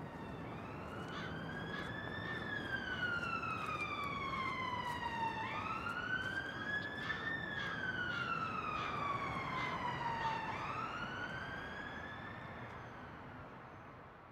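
Emergency vehicle siren in a slow wail, its pitch rising and then falling in long sweeps about every five seconds, fading out near the end, over a steady background hiss.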